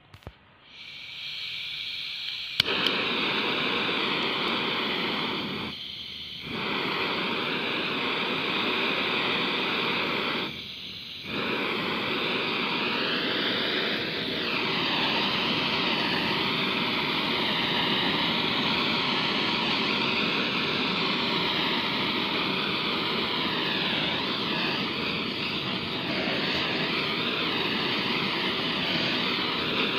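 Butane kitchen blow torch on a gas canister: gas hisses for a couple of seconds, then with a sharp click the flame catches and the torch burns with a loud, steady rushing jet noise, dropping briefly twice.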